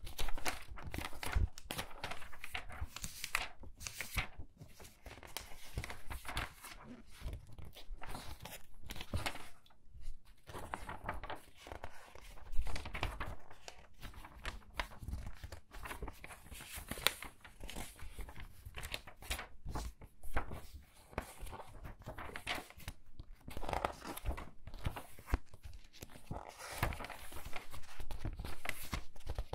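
Pages of a book being turned quickly one after another: a close, irregular run of paper rustles and flicks.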